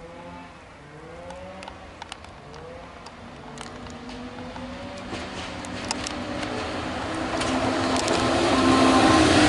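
EP09 electric locomotive hauling a passenger train, approaching and growing steadily louder. A humming tone shifts in pitch as it comes, with a few light clicks.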